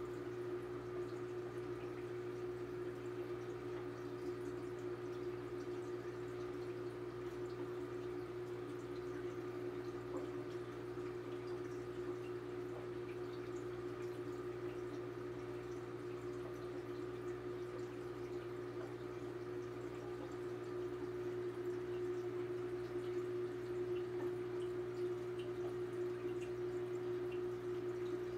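Aquarium running: a steady electrical hum from the tank's filter or pump motor, with water trickling and dripping.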